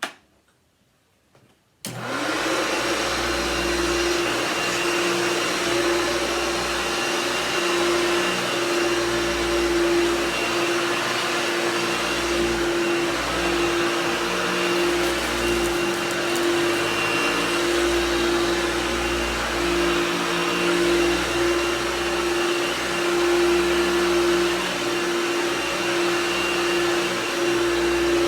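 Vintage Hoover upright vacuum cleaner switched on about two seconds in, then running steadily with an even motor hum while it is pushed over carpet, its beater bar vibrating the pile.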